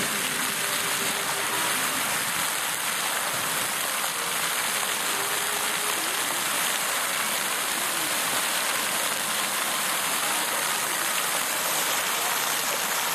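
Jets of a ground-level park fountain spraying and the water pattering down onto the stone basin floor: a steady, even hiss of falling water.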